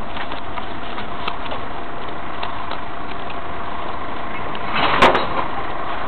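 Heil 5000 rear-loader recycling truck running, with a steady background of engine and street noise. About five seconds in there is one loud crash as a worker tips recyclables into the rear hopper.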